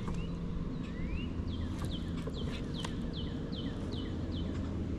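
A songbird singing: a couple of rising whistles, then a run of about eight quick down-slurred notes, roughly three a second, over a steady low background hum.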